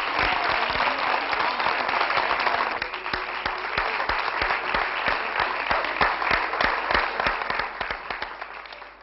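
Audience applauding: a dense crowd of hand claps that fades out near the end.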